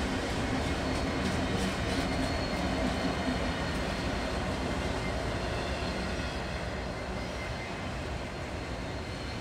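A line of BNSF diesel-electric locomotives passing close by at the head of a freight train, their engines running over a steady rumble of wheels on rail. The engine tone fades about four seconds in as the last units go by, leaving the wheel and rail noise of the container cars.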